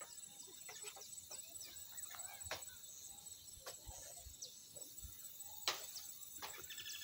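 Faint evening insect chorus: a steady high-pitched buzz with many short, high chirps over it. A few sharp clicks from the phone being handled, the loudest about two thirds of the way through.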